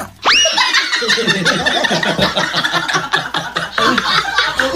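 Canned laughter from many voices, a laugh-track sound effect marking the punchline of a radio comedy bit. It opens with a quick upward whistle-like glide.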